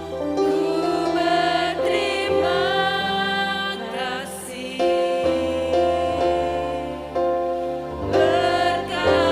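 Music: a slow song with sustained chords changing every second or so, and a wavering melody line above them.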